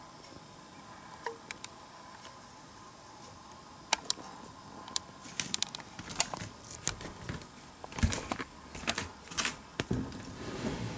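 Faint and quiet for the first four seconds, then a run of sharp clicks and soft knocks from hands handling the camera and easing a wooden sliding door open.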